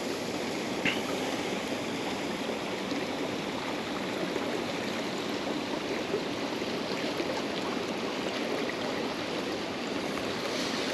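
River water flowing steadily over a shallow run, a continuous even rush.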